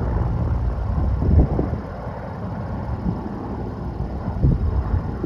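Wind buffeting the microphone: a low, rough rumble that gusts louder about a second in and again near the end.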